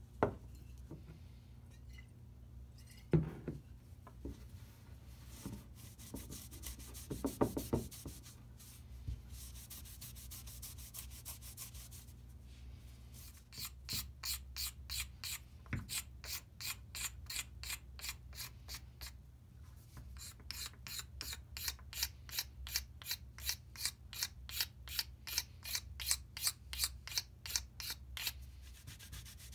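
Utility knife blade scraping the surface of a wooden mallet head in quick, regular strokes, about two a second, with a short pause partway through; the scraping starts about halfway in. Before it, a few knocks as the mallet is handled and a soft wiping rub of the wood being cleaned with alcohol.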